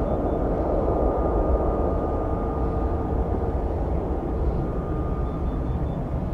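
Jet airliner engines running: a steady rumble with two held whining tones over it.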